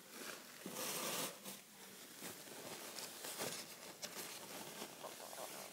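A paper towel rustling and wiping across a wooden tabletop, mopping up spilled slime activator. It is loudest for a moment about a second in, then goes on as softer rubbing and rustling.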